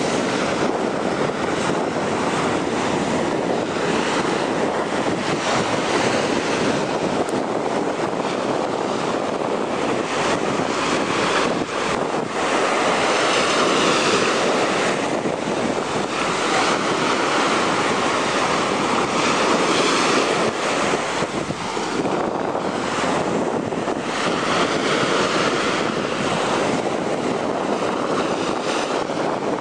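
Sea surf breaking and washing up a sandy beach, a continuous rush that swells and eases with each wave.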